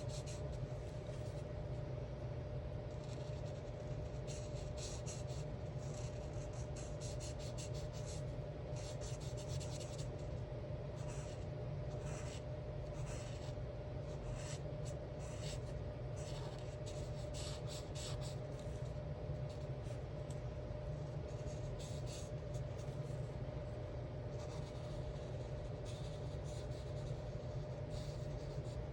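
Alcohol marker tip stroking back and forth on coloring-book paper in quick runs of short scratchy strokes, over a steady low hum.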